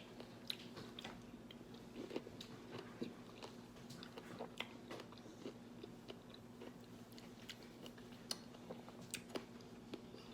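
Faint, close mouth sounds of someone chewing a spoonful of fresh fruit in coconut water, with scattered small clicks and smacks over a faint steady hum.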